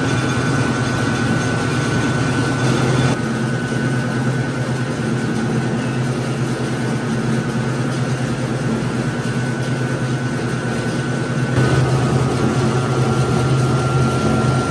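Corn mill (molino de nixtamal) running, its spinning grinding disc milling cooked maize into masa: a loud, steady machine hum with a steady high whine over a rush of grinding noise. The sound shifts slightly about three and about twelve seconds in.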